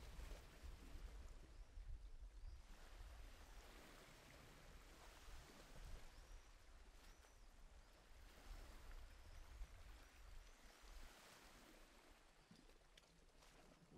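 Near silence with a faint nature-sound bed: a soft hiss like distant running water and a few short, high chirps like birds, slowly fading.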